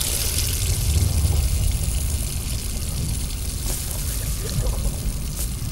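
Water running in a steady stream, as from a bathroom tap.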